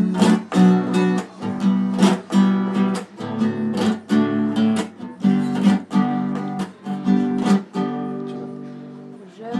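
Acoustic guitar strummed in a steady rhythm. Near the end one chord is left to ring and fade.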